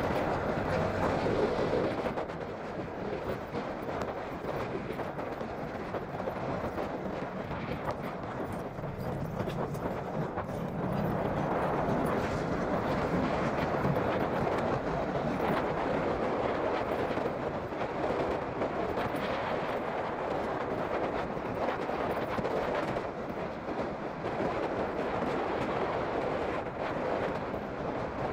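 Honda CB150R motorcycle under way on a highway: steady wind and road noise over the running engine, growing somewhat louder partway through.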